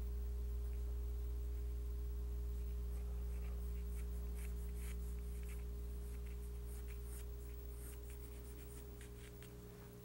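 Pencil sketching on drawing paper: a run of short, light scratching strokes, most of them from about three seconds in. Under them is a steady low electrical hum that slowly fades.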